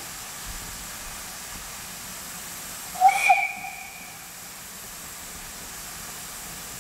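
Steam hissing steadily from a Great Western tank locomotive, with one short steam-whistle blast about three seconds in.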